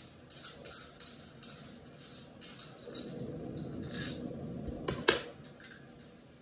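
Small metal faucet parts being handled, with light clinks and rattles, a stretch of rustling, and one louder knock about five seconds in.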